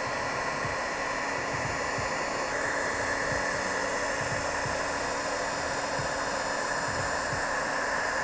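Electric heat gun blowing hot air steadily, shrinking heat-shrink tubing over the motor phase wires.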